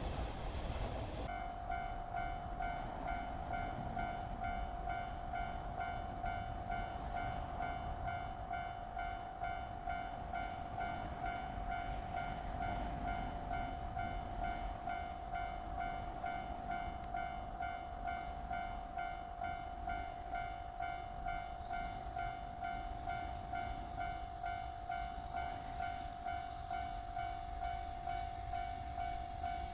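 Japanese level crossing's electronic warning bell starts about a second in and rings on with a steady, evenly repeating tone: the crossing is closing for an approaching train.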